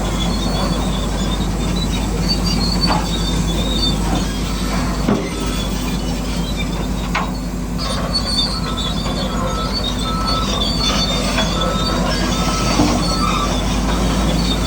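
Bulldozer running: a steady low engine hum, with short high-pitched squeals coming and going over it.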